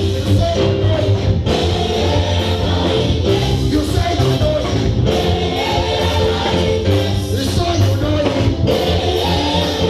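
Live or amplified band music with singing, a strong bass line and guitar.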